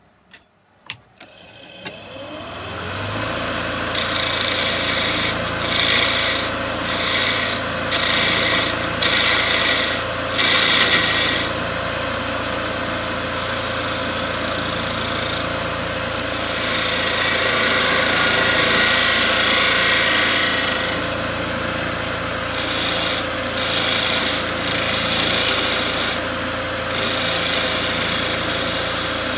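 A wood lathe motor starts and spins up to a steady hum over the first few seconds. A lathe knife fitted with a carbide radius tip then cuts the spinning wooden spindle in a series of short scraping passes, with one longer cut in the middle.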